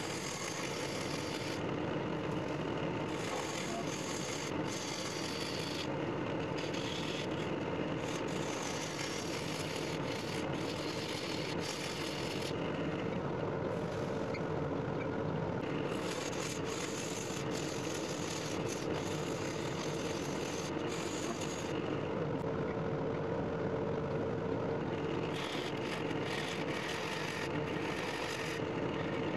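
Wood lathe running while a hand-held gouge cuts away the tenon of a spinning walnut blank. The cutting hiss comes and goes in repeated passes over the lathe's steady hum.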